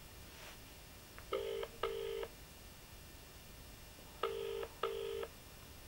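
British-style telephone ringback tone: two double rings ("ring-ring"), each a pair of short steady tones, about three seconds apart. This is an outgoing call ringing unanswered at the other end.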